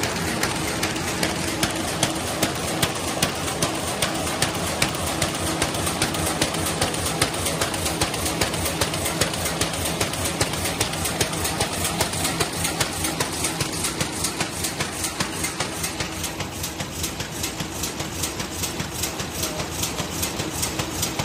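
ZNEP F450QB servo-driven paper bag machine running in production, a steady mechanical clatter with a regular beat of about two to three knocks a second.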